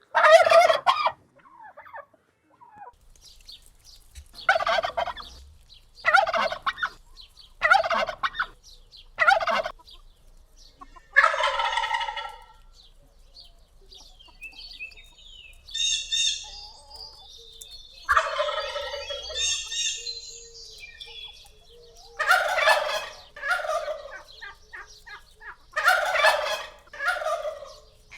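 Turkeys gobbling over and over: about a dozen calls with short pauses between them, with a few higher-pitched calls near the middle.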